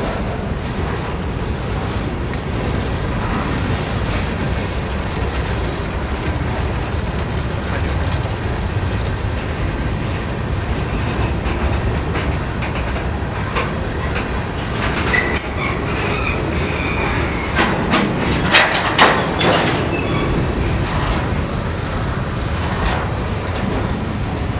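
Freight cars rolling past close by: a steady rumble with wheels clattering over the rail joints. About two-thirds of the way through, a brief high wheel squeal is heard, followed by a few sharp metallic clanks.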